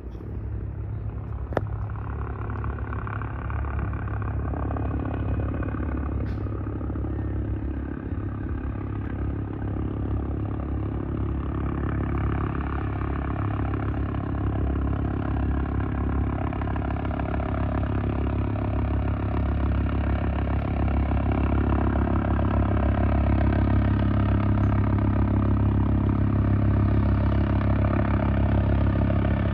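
Rescue helicopter's rotor and turbine running in flight, a steady drone with a fast rotor beat that grows gradually louder as the helicopter approaches.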